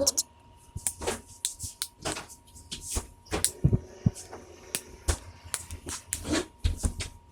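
Plastic clips of a Samsung Galaxy S4's frame snapping into place as the frame is pressed onto the phone: a long series of sharp, irregular clicks and small knocks.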